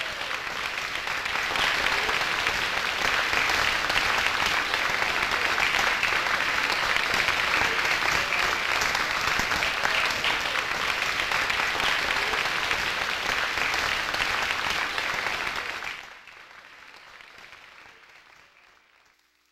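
Audience applauding steadily. The applause cuts off sharply about three-quarters of the way through and fades to near quiet.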